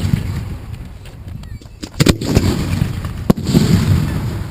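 Two sharp firework bangs, about a second apart, over a low steady rumble.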